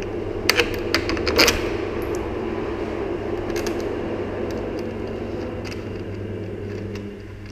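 A few light metallic clicks and clinks, bunched in the first second and a half, as the exhaust heat shield is handled and fitted over its clamp, over a steady low hum.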